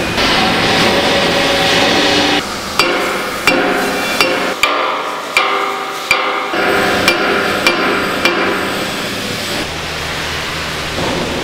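A hammer striking steel parts of an excavator boom about ten times at an uneven pace, each blow ringing metallically, over a steady workshop hum.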